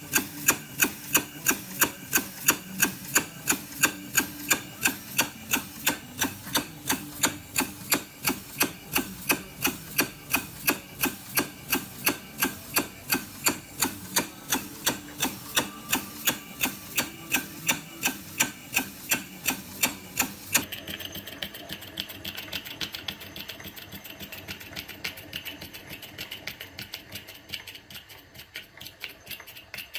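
Small side-crank model steam engine running, with a sharp, regular beat about two and a half times a second. About two-thirds of the way through it gives way abruptly to the quieter, faster ticking of a small oscillating steam engine fed from a brass vertical boiler.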